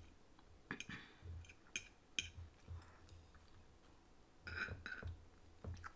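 Quiet, scattered clicks and taps of a fork against a plate, with the rustle of a tamale's corn husk being handled.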